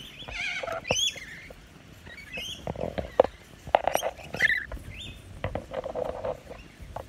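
Rainbow lorikeets feeding at a bowl of apple: short high squeaks and chatter, mixed with sharp taps and scraping as beaks and claws work on the bowl and the fruit.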